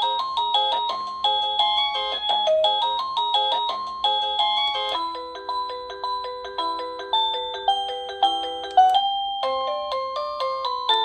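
SadoTech wireless doorbell receiver playing its electronic chime tunes one after another: short melodies of bell-like notes, one tune giving way to the next about five seconds in, and again after a brief break near nine seconds.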